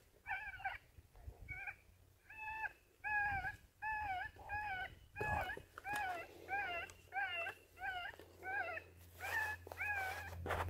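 Electronic predator call playing a cottontail rabbit distress sound: repeated wavering squalls, a few at first and then about two a second, over a faint low hum.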